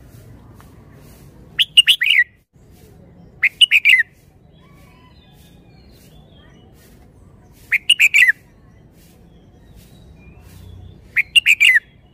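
Red-whiskered bulbul singing: four short phrases a few seconds apart, each a quick run of about four clear whistled notes.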